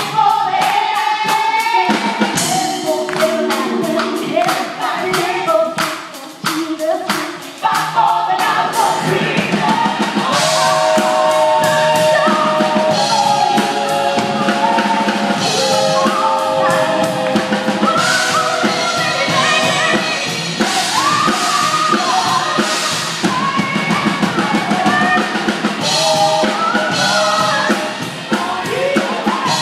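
A praise team singing with backing voices over a live band, with a drum kit keeping a steady beat.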